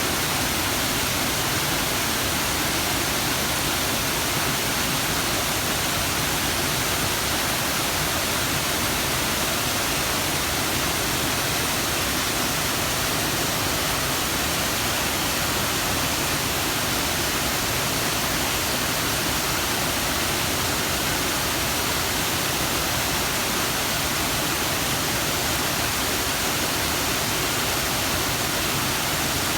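A powerful waterfall swollen with extra water after a typhoon, pouring down in a steady, unbroken rush of water sound.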